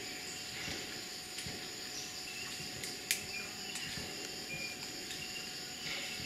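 Steady high-pitched chorus of rainforest insects, with one sharp click about three seconds in.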